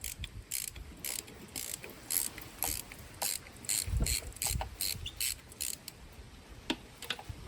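A 3/8-inch ratchet with a 5/8-inch spark plug socket clicking as it is worked back and forth to unscrew a spark plug, about two to three quick clicks a second. The clicking thins out about six seconds in.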